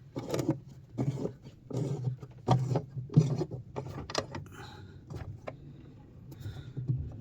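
Irregular knocks, clunks and rubbing of something being handled, about one a second, with a quieter stretch a little past the middle.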